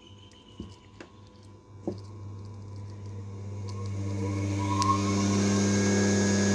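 A few sharp clicks as the capacitor leads are reconnected, then a five-wire washing machine motor spinning up on its spin winding: a hum and whine rising over about three seconds and settling into a steady high-speed run. With the capacitor lead now on the right pole, the motor reaches its spin speed.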